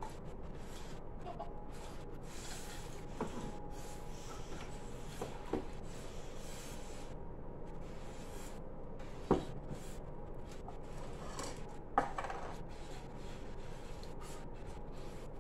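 Steady faint hiss of air drawn through drinking straws as two players suck up mini marshmallows, with a few light taps on glass cups. The two sharpest taps come past the middle.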